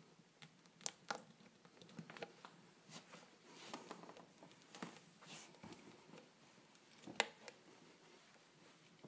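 Faint, scattered clicks, creaks and rubbing from a sneaker's clear plastic air-cushion sole being worked with a knife blade and pressed against a wooden floor, with a sharper click about seven seconds in. No long hiss of escaping air.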